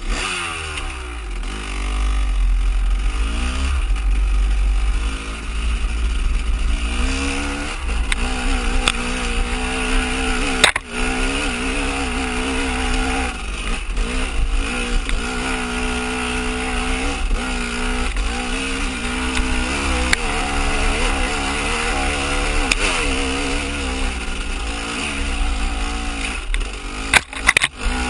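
Off-road motorcycle engine running under load on a rough uphill dirt trail, its revs rising and falling with throttle and gear changes. A low wind rumble on the microphone runs underneath, and a couple of sharp knocks come from the bike working over the rocks.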